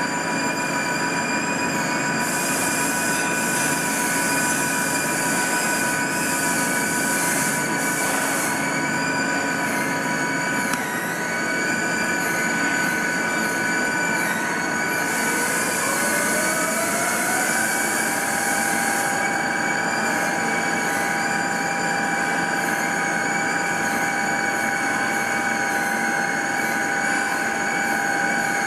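Okuma MC-60VA vertical machining centre running, with several steady high whines. About halfway through, a whine rises in pitch for a couple of seconds and then holds steady, as the spindle speeds up. There are two long stretches of hissing, one near the start and one around the rise.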